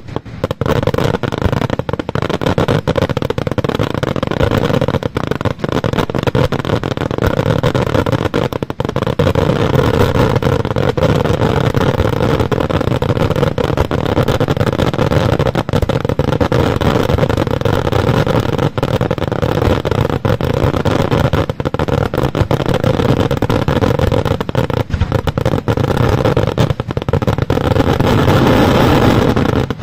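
Daytime fireworks barrage: a dense, continuous run of rapid bangs and crackles from bursting smoke shells, merging into a steady rumble and swelling just before it stops.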